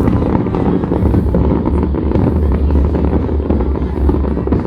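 Aerial fireworks going off in a rapid barrage, with the booms running together into a loud, continuous low rumble and scattered crackles.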